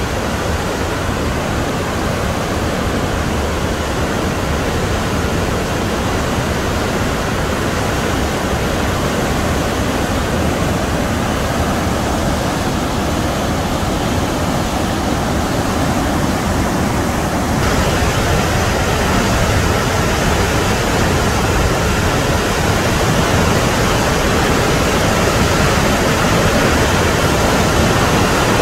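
Athabasca Falls: the Athabasca River plunging into its narrow rock gorge, a loud, steady rush of falling and churning water. About two-thirds of the way through, the rush abruptly turns brighter and a little louder.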